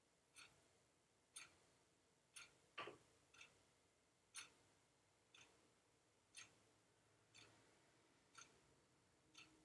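A clock ticking faintly and evenly, one tick a second, with one slightly louder, deeper knock about three seconds in.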